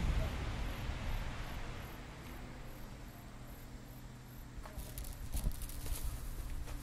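A rushing noise, like passing traffic, fades away over the first second or two, leaving a low steady hum. About halfway through, footsteps on a paved walkway begin.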